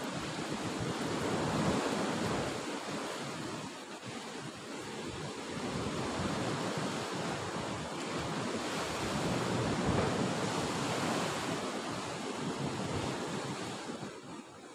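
Sea surf washing and breaking against the rocks below, swelling and easing in two long surges, with wind on the microphone.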